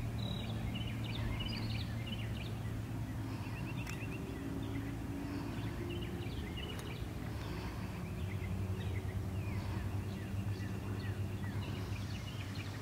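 Songbirds chirping and trilling in many short calls throughout, over a steady low mechanical hum.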